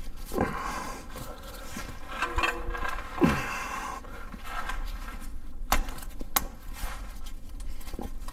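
A ratchet levering a serpentine belt tensioner, with hands working the belt off an idler pulley under load. Scraping and rubbing, a knock about three seconds in, and several sharp clicks in the second half.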